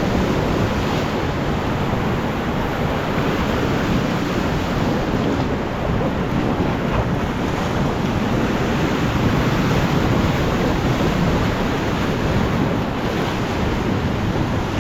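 Rushing whitewater of the Beas River around a raft, a loud, steady rush, with wind buffeting the microphone.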